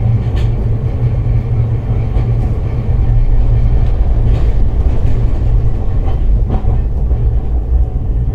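Hakodate City Transportation Bureau 8000-type tram running, heard on board: a steady low rumble of motors and wheels on the rails, with a few sharp clicks as the wheels pass rail joints.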